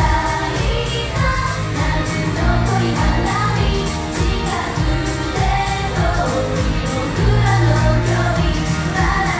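J-pop idol-group song: female voices singing over an upbeat pop backing track with a steady beat.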